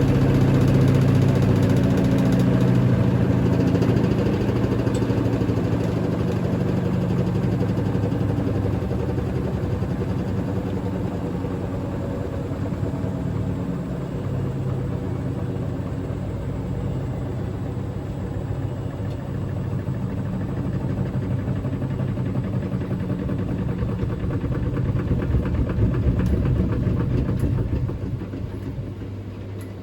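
Hotpoint Ultima WT960 washing machine on its final spin with a badly unbalanced load: the motor and drum hum loudly with rapid knocking and vibration. The spin swells again shortly before the end, then drops off sharply as it begins to slow.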